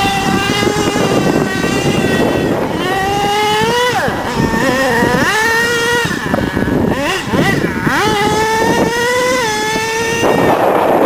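HPI Savage SS's 4.6 cc nitro engine, a high-pitched buzz, revving up and dropping off again and again as the RC monster truck accelerates, brakes and turns on dirt. Near the end a rushing noise covers the engine.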